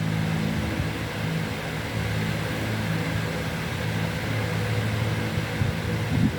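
Steady low machine hum with a broad hiss.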